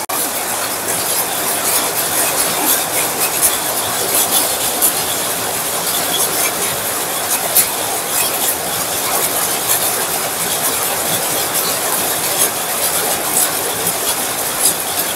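Heavy rain pouring onto a wet tiled patio and splashing into puddles: a steady hiss with many small drop ticks.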